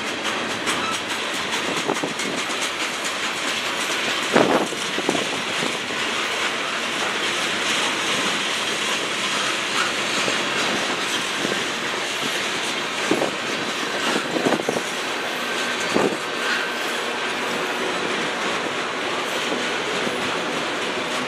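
Freight cars of a passing manifest train (tank cars, a lumber flatcar, autoracks) rolling by, a steady rumble of steel wheels on rail broken by several sharp clacks as wheelsets cross rail joints.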